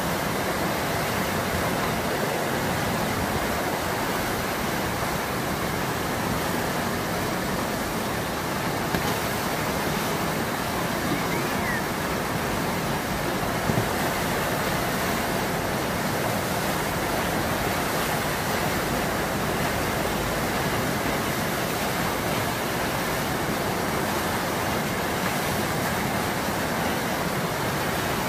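Steady rushing of white water from the Eisbach standing river wave, the fast-flowing river breaking into churning foam.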